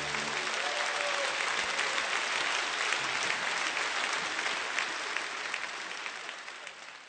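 Concert audience applauding as the band's final chord dies away in the first half second. The clapping then fades out toward the end.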